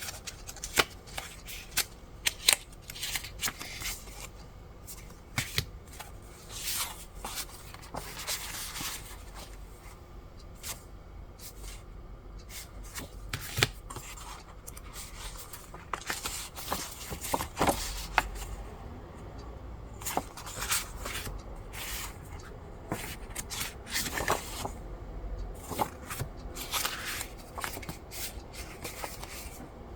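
Hands handling paper items and packaging: irregular paper rustling and short swishes with light taps and clicks.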